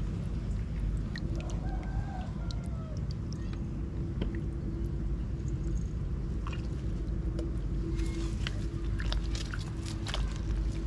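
A rooster crows once, about a second and a half in, over a steady low rumble and a constant hum. A run of sharp clicks follows about eight seconds in.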